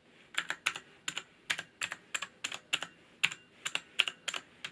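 Keys on a Cherry MX Board 1.0 TKL mechanical keyboard with Cherry MX Blue clicky switches being pressed one at a time, unevenly, about three a second. Each press gives a sharp double click.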